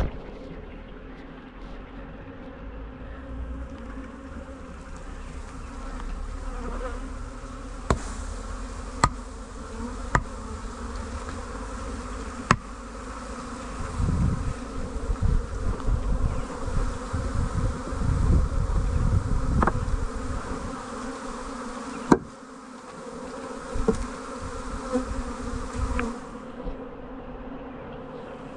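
Honeybees shaken out of their hive buzzing in the air close by: the steady hum of many flying bees. A few sharp knocks are heard in the first half and once later on, with low rumbling handling noise in the middle.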